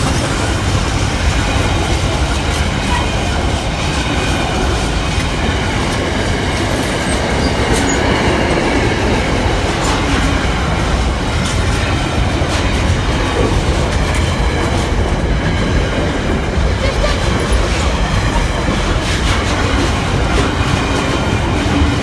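Freight train wagons rolling steadily past at close range: a continuous rail rumble with wheels clicking over the rail joints.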